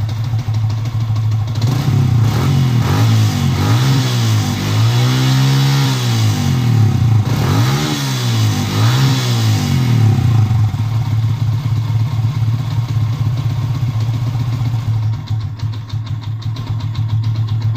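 Yamaha Sniper 150 single-cylinder four-stroke engine running through an UMA V2 aftermarket exhaust with a titanium elbow: idling, then revved in a run of short throttle blips with one longer rev in the middle from about two seconds in, and settling back to a steady idle at about ten seconds.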